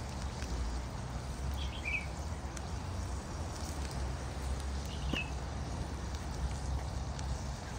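Steady low outdoor rumble with two short bird chirps, about two seconds in and again about five seconds in.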